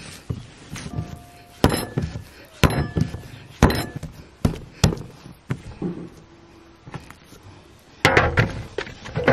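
Soft bread dough being kneaded and thumped down on a wooden board, a dull knock roughly once a second. Near the end the sound turns into a denser rough rubbing as the dough is worked over a metal basin of flour.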